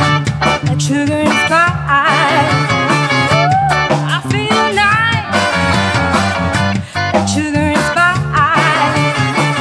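Live band playing a song: a woman singing lead with vibrato over electric guitar, bass and drums keeping a steady beat.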